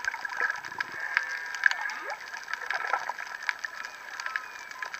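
Underwater sound of humpback whale song: faint calls that glide up and down in pitch over a steady wash and dense crackling clicks.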